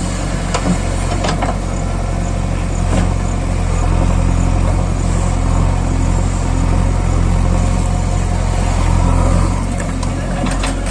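A heavy engine running steadily with a low, even hum, like a diesel tractor or excavator engine at a constant speed.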